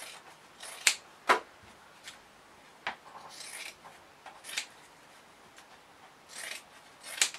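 Scissors snipping through fleece-lined fabric to trim a seam allowance: a handful of separate short cuts, each a brief crunch or a sharp click, with short pauses between.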